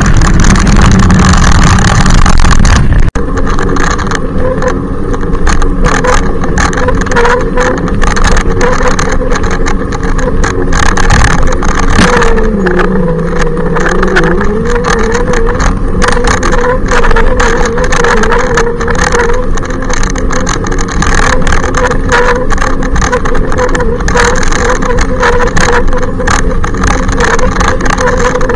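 Loud motor whine of an e-bike riding close behind: a steady pitched hum that sinks in pitch about twelve seconds in and climbs back up, with frequent short knocks and rattles over it.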